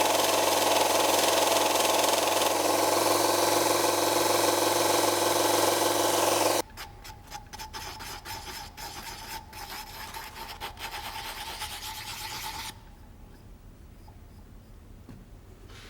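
Steady machine-driven rasping, like a tool filing or sanding with a motor hum under it, which stops abruptly about six and a half seconds in. Quieter, uneven scraping with small clicks follows and ends a few seconds before the end.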